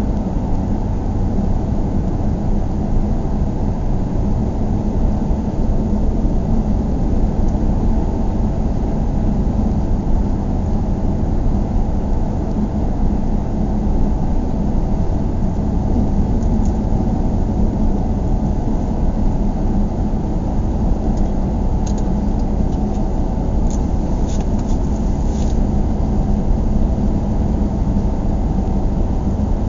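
Steady low rumble of a car being driven, road and engine noise heard from the cabin, with a steady hum under it. A few faint clicks come about two-thirds of the way through.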